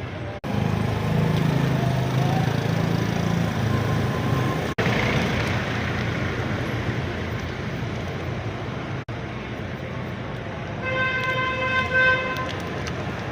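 Steady traffic-like background noise, broken by a few short cuts, with a horn-like tone sounding for about two seconds near the end.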